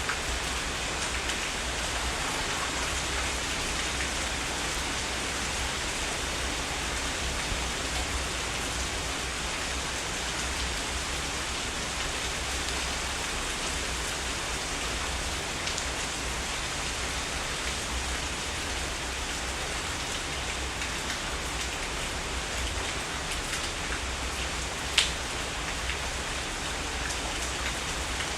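Heavy rain falling steadily, an even hiss of many drops. One sharp click stands out near the end.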